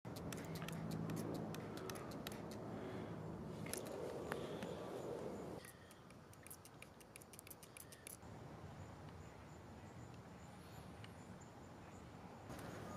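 Plastic trigger spray bottle being squeezed again and again, a series of sharp clicks with a quick run of them about two thirds of the way through, spraying the seams of an inflatable paddle board to check them for leaks.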